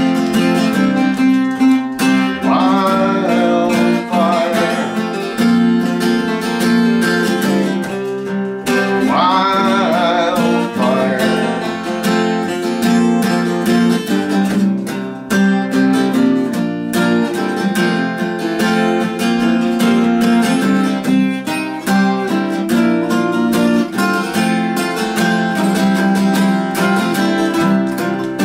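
Acoustic guitars strumming and picking an instrumental break in a folk song, with a wavering melodic lead line rising above the chords several times.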